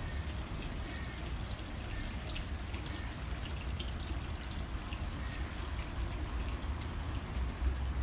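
Water trickling and splashing into a small pool, a steady patter of drips and splashes, with a low rumble underneath.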